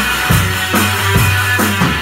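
Rock band playing live: a Yamaha drum kit keeps a steady beat of about two and a half hits a second under sustained bass guitar notes and electric guitar.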